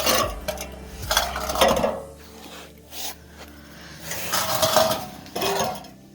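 Metal clanking and scraping in several short bouts: the cut-off section of a car exhaust pipe being worked loose and handled. There is a pause in the middle.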